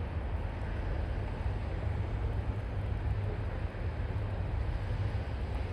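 CSX freight train rolling past with a steady low rumble and no horn.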